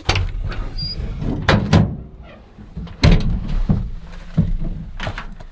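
A run of sharp knocks and bumps, about seven, over a low rumble that starts and stops suddenly.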